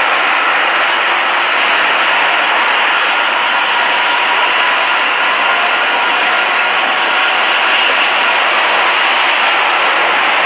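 Amtrak F59PHI diesel-electric locomotive running with a loud, steady, jet-like roar and a faint whine over it.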